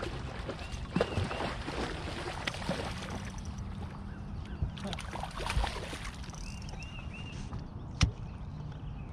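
A hooked catfish thrashing and splashing at the water's surface beside a boat as it is reeled in, with a sharp knock near the end.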